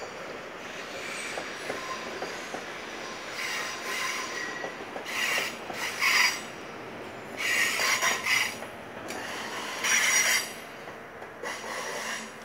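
SBB passenger train wheels squealing on the rails in repeated high-pitched bursts, five in all, over a steady rolling rumble. The loudest squeals come in the middle.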